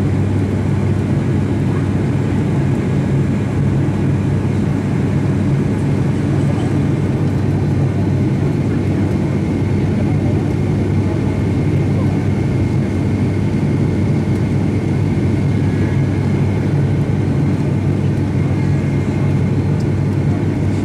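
Steady drone of an ATR 72's twin turboprop engines and propellers, heard from inside the passenger cabin on approach: a low, even hum with a faint steady high whine above it.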